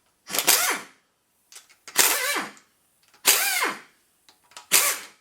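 A handheld power tool with a socket, run in four short bursts about a second and a half apart, its pitch dropping within each burst, spinning out rocker arm bolts on an LS 6.0 V8.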